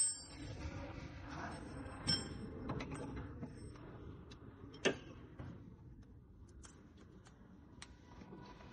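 Scattered metallic clinks and taps of a socket extension and tie rod end being handled at the steering linkage, the sharpest clink about five seconds in and a few light ticks near the end.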